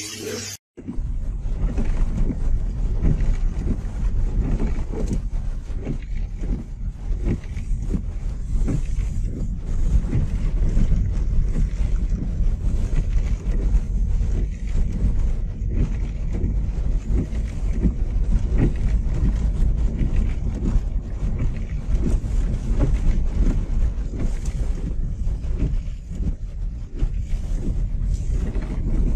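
Car driving over a snow-covered road, heard from inside the cabin: a steady low rumble with frequent irregular small knocks and bumps.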